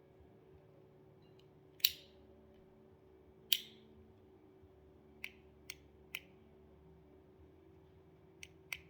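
Sharp plastic clicks from the buttons and switches of a fidget controller toy: two louder clicks about two and three and a half seconds in, then several lighter ones.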